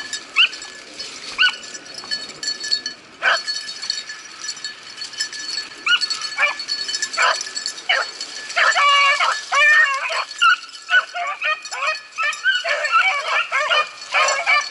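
Rabbit-hunting beagles baying: scattered single yelps at first, then from about eight seconds in, a near-continuous run of overlapping bawls as the hounds give tongue on a rabbit's scent trail.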